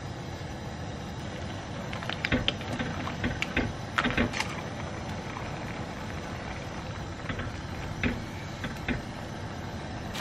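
A pot of soft tofu stew simmering on the stove with a steady low hiss, under light clicks and taps of utensils against the pot. A cluster of taps comes about two to four and a half seconds in, and two more near eight and nine seconds.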